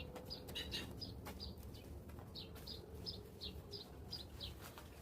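Small birds chirping: a steady run of short, high chirps, about two or three a second.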